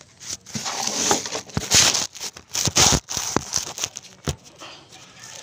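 Handling noise from a phone being gripped and repositioned: fingers rubbing and brushing over the microphone, with a handful of sharp knocks and bumps, loudest in the middle.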